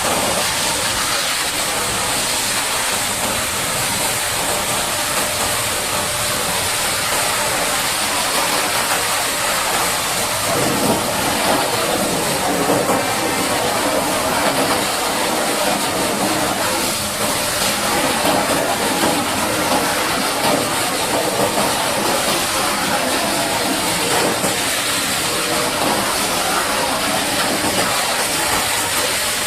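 High-pressure water jet spraying mud off a bulldozer, a steady loud hiss that turns fuller and rougher about ten seconds in.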